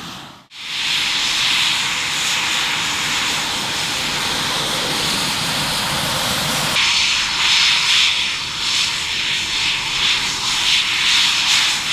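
Eurofighter Typhoon's twin EJ200 turbofan engines running at taxi power: a steady jet whine and rush. The sound cuts out briefly just after the start and turns louder and more uneven from about seven seconds in.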